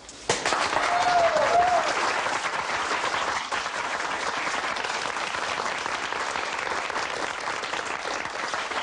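Audience applauding, breaking out suddenly just after the start and loudest in the first two seconds, then going on steadily.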